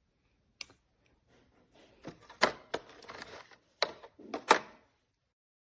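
Sharp clicks and knocks from the pieces of a dog grooming kit being handled and set down, about six taps with light rattling between them, the loudest about two and a half seconds in.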